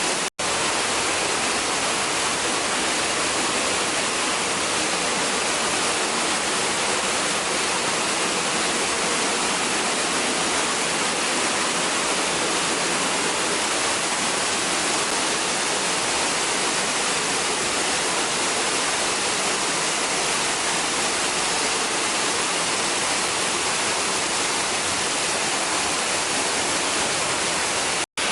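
Waterfall water pouring and splashing, a steady dense rushing noise that doesn't change. It drops out for an instant just after the start and again near the end.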